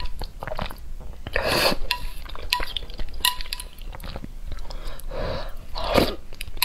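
A person slurping and chewing black bean sauce noodles, with slurps about a second and a half in and twice near the end. Between them, chopsticks click against the plate.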